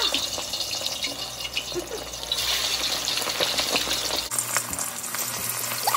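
Chicken wings sizzling as they deep-fry in hot oil: a steady, even hiss that changes abruptly about four seconds in.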